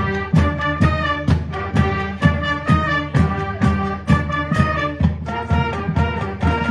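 School band playing a tune: trumpets, trombones and sousaphones over a drumline, with drum hits about twice a second.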